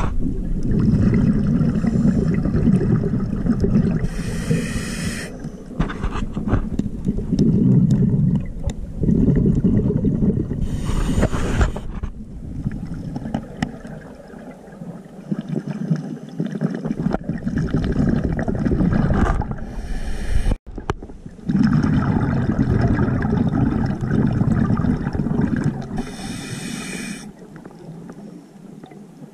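Scuba regulator breathing heard underwater: long bubbling, gurgling exhalations alternating with short hissing inhalations, about four breaths in a slow, even cycle.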